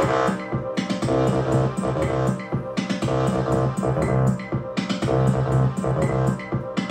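Korg Volca synthesizers and drum machine running their sequencers together: a looping electronic pattern with a steady drum beat under bass and synth notes.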